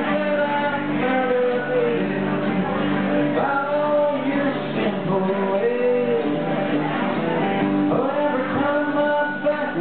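Live band playing: a man sings a melody into a microphone over acoustic and electric guitars.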